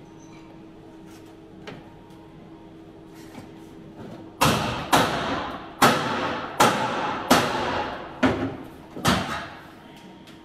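A run of about seven short welding bursts on steel bracing being tacked into a car body shell. Each burst starts suddenly and fades within a second, and they come close together over about five seconds, starting about four seconds in.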